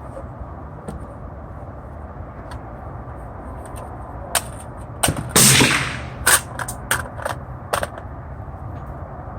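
Gunshots: a steady background hum, then about halfway through a quick irregular string of sharp shots over roughly three and a half seconds, the loudest bunched together in the middle.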